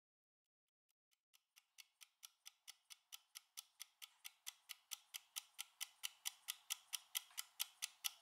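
Clock-like ticking of a countdown timer, about four ticks a second, fading in about a second in and growing steadily louder as the countdown nears zero.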